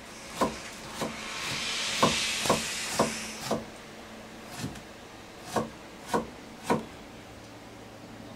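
Knife chopping on a wooden cutting board: a run of sharp knocks, mostly about two a second, with a hiss that swells and fades in the first few seconds.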